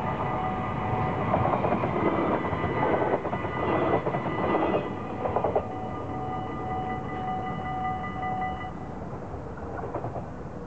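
Level-crossing warning bells ringing with a steady tone, over the clatter of a train's wheels on the rails, loudest in the first half and fading. The bells stop about three-quarters of the way through, as the barriers begin to rise.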